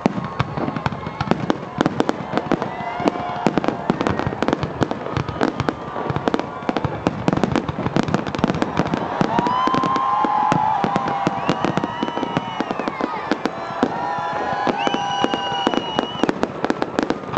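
Fireworks display: a rapid, continuous barrage of bangs and crackling. Long steady tones run over it about halfway through and again near the end.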